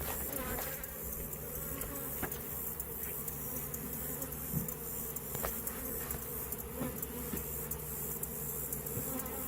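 Honey bees buzzing around newly installed nuc hive boxes: a steady, dense hum with a few light clicks.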